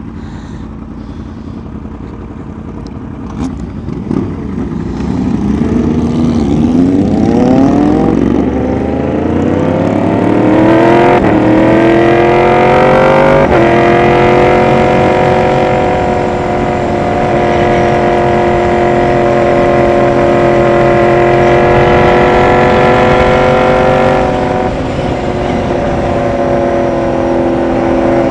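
Motorcycle engine pulling away from a stop, its note rising through about three gear changes in quick succession, then holding steady at a cruise and easing off briefly near the end.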